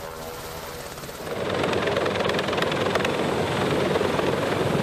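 Helicopter rotor and turbine noise. At first a UH-60 Black Hawk hovers with a steady hum. About a second in it gives way to a louder, rougher rotor noise from the coaxial-rotor Sikorsky-Boeing SB-1 Defiant flying low.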